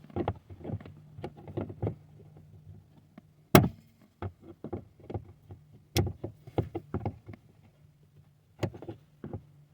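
Needle-nose pliers working plastic push-pin grommets out of an under-dash panel: a run of small plastic clicks and knocks, with three sharp snaps as they come loose.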